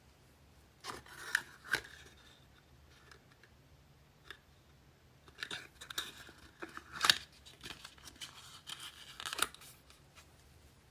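Gift packaging being opened by hand: rustling, crinkling and tearing of paper or wrapping, with sharp snaps. It comes in a short burst about a second in and a longer stretch from about five and a half to nine and a half seconds.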